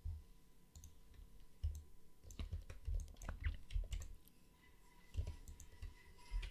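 Faint, irregular clicks of a computer mouse and keyboard keys, with soft low thumps between them.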